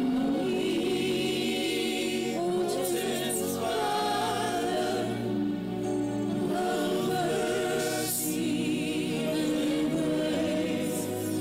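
A slow gospel worship song: a woman's solo voice singing held, wavering notes over choir voices and sustained accompaniment.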